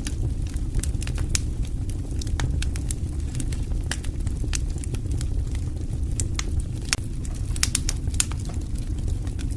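Wood campfire burning: a steady low rush of flames with frequent, irregular sharp crackles and pops from the burning wood.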